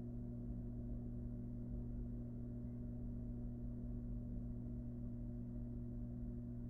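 Steady low electrical hum of two unchanging tones, with no calls or knocks rising above it.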